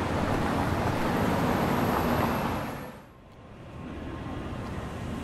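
Steady traffic-like rumble and hiss of vehicles that fades down about three seconds in, then returns more quietly.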